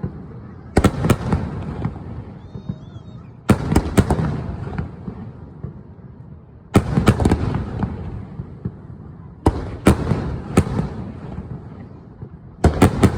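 Aerial fireworks bursting in five salvos about every three seconds. Each salvo opens with a few sharp cracks and is followed by a low rumble that fades away.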